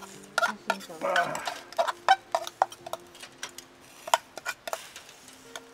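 Metal tongs clicking and scraping against a wire-mesh charcoal grill as slices of meat are picked up and turned over: a run of sharp, irregular clicks.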